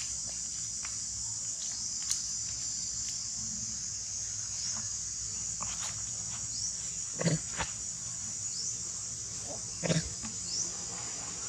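Steady, high-pitched chorus of insects, with faint clicks and short chirps, broken by two short animal calls about seven and ten seconds in.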